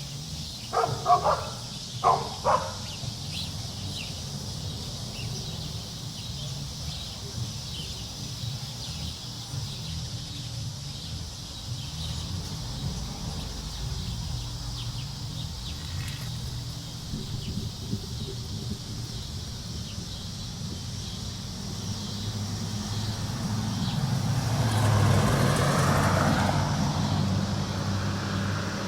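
A dog barks a few times at the start, then outdoor background noise with a steady low rumble. Near the end a louder low rumble swells up and fades away again.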